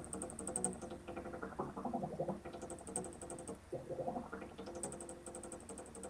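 Fast-forwarded sound of people handling paper towels over plastic cups, sped up into a rapid, high-pitched jumble with repeating quick sweeps and bursts of fast ticks.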